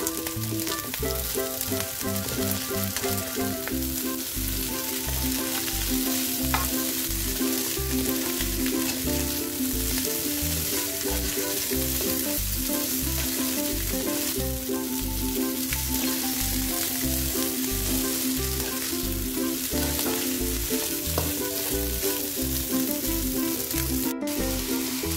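Fried rice sizzling in a hot wok as it is stirred and tossed with a slotted spatula. Background music with a steady beat plays throughout.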